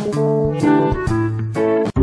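Instrumental background music, a quick run of short pitched notes, cutting off abruptly just before the end.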